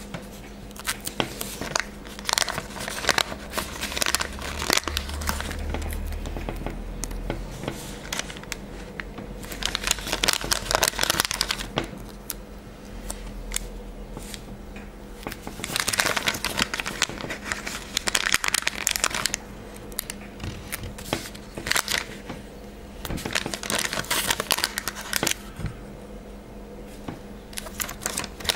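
Glossy paper sticker sheet crinkling and crackling under fingers as small stickers are peeled off it, in several spells of rustling with quieter gaps between.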